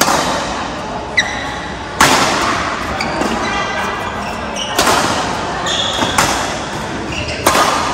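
Badminton rally: about five sharp racket hits on the shuttlecock, one every second or two, echoing in a large hall, with short squeaks of shoes on the court floor between the hits.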